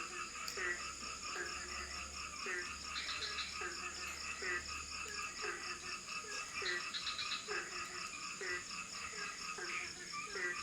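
A chorus of frogs calling. One gives a short low croak over and over, about once or twice a second, among many higher overlapping calls and short rapid trills. A steady high insect drone runs beneath.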